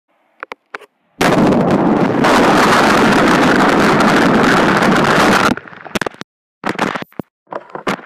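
Boiling water heard through an iPod's microphone that has dropped into the pot: after a couple of small clicks, a very loud, distorted rushing noise of the bubbling water starts about a second in and lasts about four seconds. It cuts off suddenly, followed by scattered knocks and clatter as the iPod is handled.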